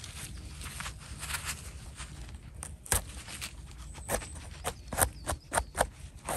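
Small knife scraping soil and debris off the base of a freshly picked bolete's stem, with gloved hands handling the mushroom: a run of short scratchy scrapes and clicks, coming thicker in the second half.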